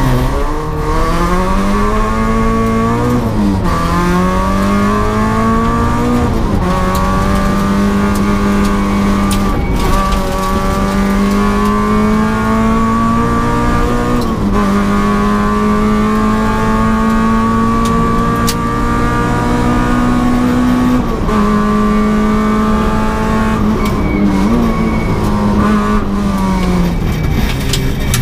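Peugeot 306 Group A rally car engine heard from inside the cockpit, accelerating hard through the gears. The pitch climbs and drops back at each upshift, holds high through the middle, then falls away near the end as the car slows.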